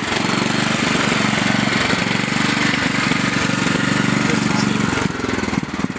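Small single- or twin-cylinder engine of an off-road riding lawn mower running steadily at a fast idle. About five seconds in, the sound drops and changes.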